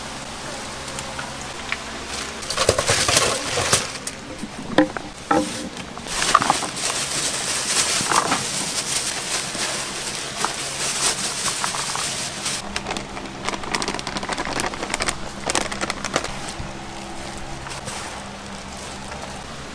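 Kitchen food-preparation noise: utensils and cookware knocking and clattering in scattered bursts over a steady hiss and hum.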